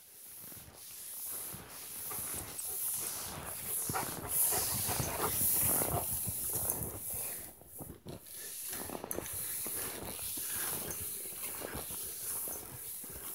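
Malamute panting as it pulls on a skijoring line, over a run of irregular crunching and scraping of skis on snow.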